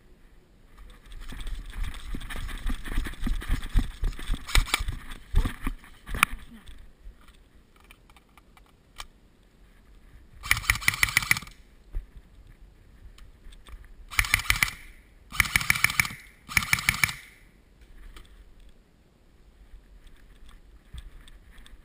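Airsoft gun firing bursts of rapid full-auto fire: one about a second long, then three shorter bursts in quick succession a few seconds later. Before the bursts there are several seconds of rumbling, thudding movement noise as the player moves with the camera.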